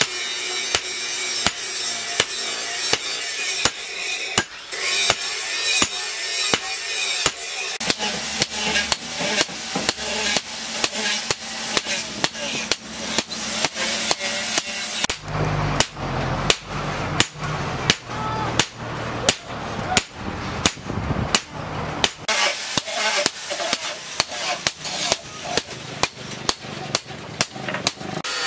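Hand hammer striking a red-hot steel cleaver blade on an anvil, a steady rhythm of about two blows a second.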